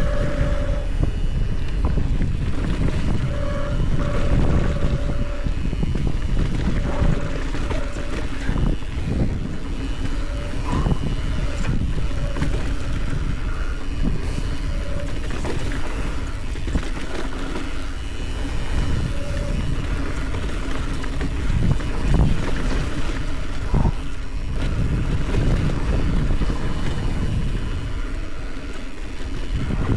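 Wind buffeting the camera's microphone and mountain-bike tyres rumbling over a loose dirt trail on a fast downhill run, with occasional knocks from bumps and brief whines that come and go.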